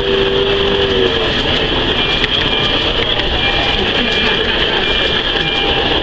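Model freight train running on its track, picked up close by a camera riding in the train: a steady rolling rumble of wheels on rail with scattered clicks over the rail joints. A held two-note tone stops about a second in.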